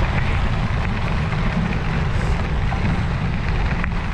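Steady low wind rumble buffeting the microphone of a camera moving along a trail ride.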